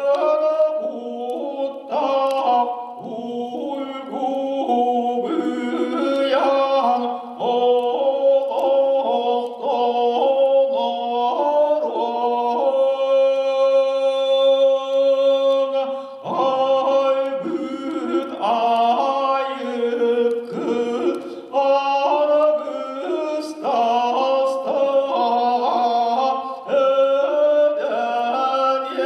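Unaccompanied Sakha (Yakut) ritual singing by men's voices: chanted melodic phrases that step from note to note, with one long held note about halfway through.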